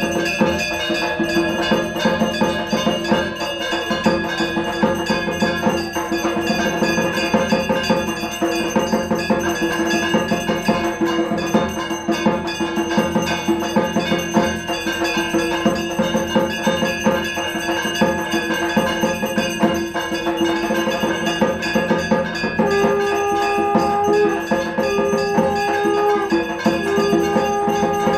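Rhythmic percussion with ringing bell-like metal tones: fast, steady strokes throughout. About 22 seconds in, three long held notes sound one after another over the beat.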